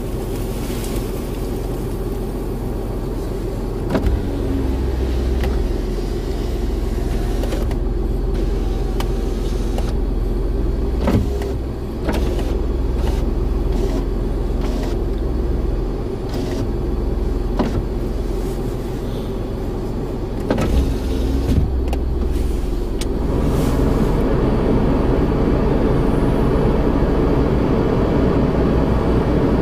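Steady low hum of a kei car's idling engine and heater fan, heard inside the cabin, with scattered light clicks and knocks. About 23 seconds in, a louder, steadier noise comes in and holds.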